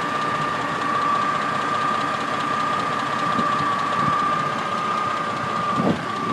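4.3-litre V6 engine idling under an open hood, with a fast ticking that the owner believes is lifter noise. A steady high whine runs alongside it.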